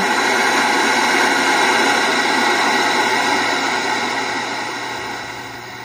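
Static hiss from an LG CRT television's speaker with no signal tuned in, steady and loud, then gradually quieter over the last few seconds. It shows the repaired set's audio section is working.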